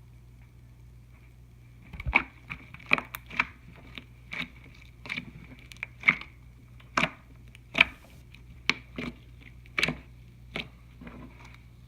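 Slime being squeezed and worked by hand, giving irregular sharp pops and clicks as air pockets burst, about one or two a second, starting about two seconds in.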